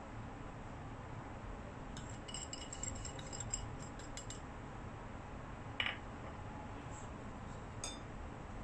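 Small wire whisk stirring dry flour in a bowl, its metal tines clinking and ticking rapidly for about two seconds. Two single clicks follow a few seconds later.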